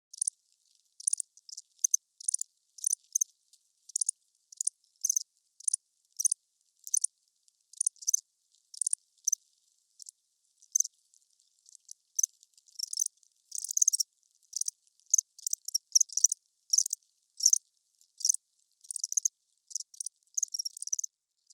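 Crickets chirping: short, high-pitched chirps repeated unevenly about twice a second, coming thicker and overlapping from about halfway through.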